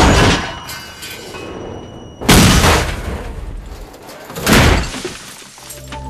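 Car crash sounds: loud crashes with breaking glass, one at the start, another sudden one about two seconds in and a third about four and a half seconds in, each dying away.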